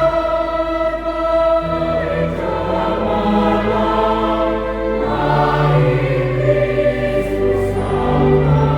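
Church choir singing a medley of Christmas carols in several parts, moving through held chords that change every second or two.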